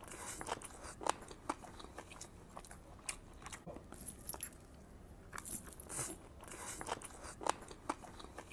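A man biting and chewing a spiced chicken leg piece, heard close. There are irregular crunches and mouth clicks, several a second.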